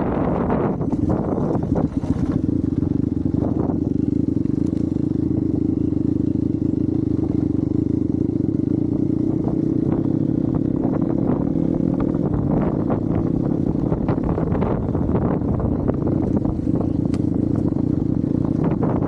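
Hero Xpulse 200 motorcycle's single-cylinder engine running at fairly steady revs, with scattered knocks and clatter throughout.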